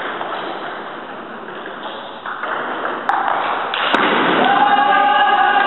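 Table tennis ball clicking sharply off bat and table twice, about three and four seconds in, over voices in an echoing hall that grow louder after the second click.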